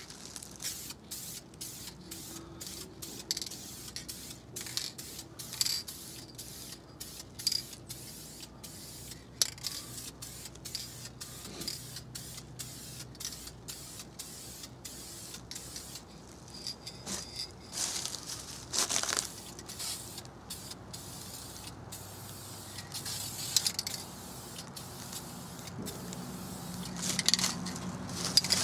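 Aerosol can of clear semi-gloss polyurethane spraying in many short hisses as a coat of finish goes on a wooden rifle stock.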